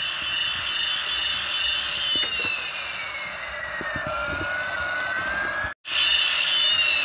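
Electronic sound effects from a battery-powered toy A380 airliner: a warbling, siren-like tone with slow falling and rising pitch glides over a jet-like hiss. The sound breaks off for an instant about six seconds in, then resumes.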